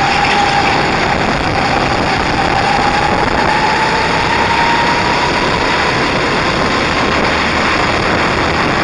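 Racing kart engine running at speed on track, heard from the kart, under a loud, steady rush of noise; its faint whine dips and then climbs slightly in pitch partway through.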